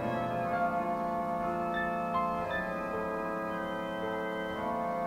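Music of slow, sustained chords, each held for a second or two before changing to the next.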